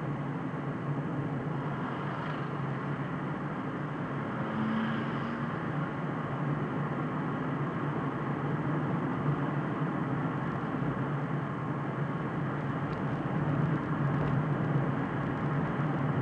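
Car driving steadily at road speed, heard from inside through a dashcam: a constant rush of tyre and road noise with the engine running underneath.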